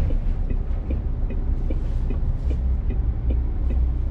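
Articulated lorry's diesel engine running at low speed, a steady low rumble heard from inside the cab. A light ticking repeats about three times a second over it.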